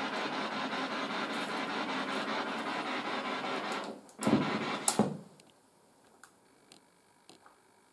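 A steady hiss cuts off about four seconds in. A short burst of knocking and rustling follows, then only faint scattered ticks.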